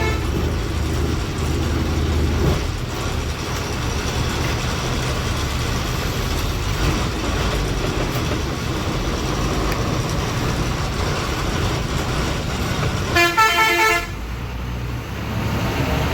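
Traffic jam with truck and bus engines rumbling steadily. A vehicle horn honks once, loudly and briefly, near the end.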